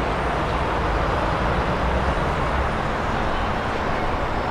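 Steady vehicle noise: a low rumble under an even hiss, with no single event standing out.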